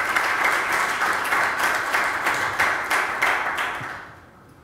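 A small audience applauding, the clapping dying away about four seconds in.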